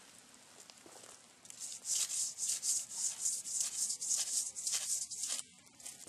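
Close, rapid rustling and rubbing from a person moving right beside the microphone. It starts about a second and a half in and stops abruptly a little before the end.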